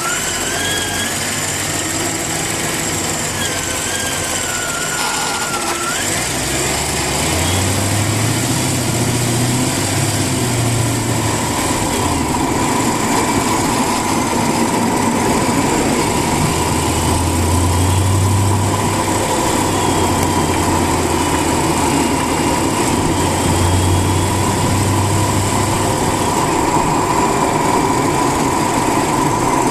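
Mercedes-Benz CLK550's 5.5-litre V8 running steadily, a low hum swelling and easing from about seven seconds in and a steady high whine joining about twelve seconds in: the weird noise the owner is trying to track down.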